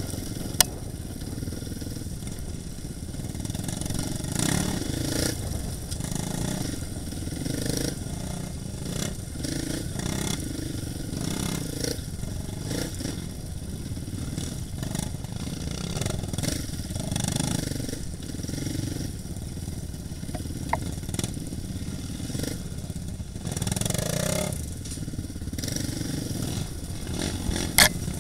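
Dirt bike engine running at trail speed over rough, rocky ground, its sound swelling and easing, with rattling throughout. A sharp knock comes about half a second in and another near the end.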